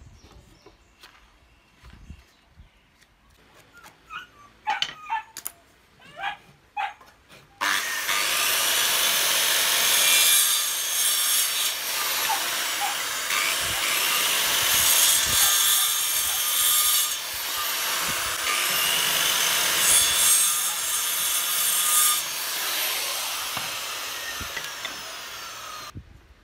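A few light knocks, then a Makita circular saw running and cutting through wood strips, the noise swelling with each of several cuts before it cuts off suddenly near the end.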